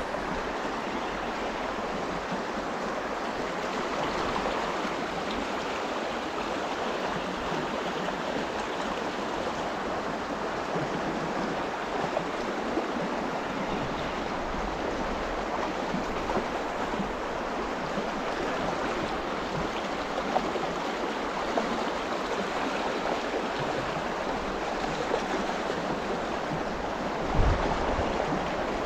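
Shallow river water rushing steadily over a rippling riffle, with a brief low thump near the end.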